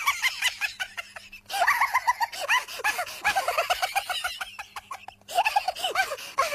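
A comic sound effect of rapid, high-pitched squawking calls, many short rising-and-falling notes a second, with two brief lulls.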